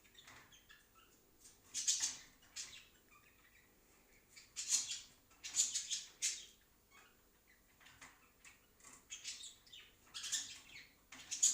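Plastic milk sachets crinkling and rustling as they are handled and opened, in about eight short, scratchy bursts.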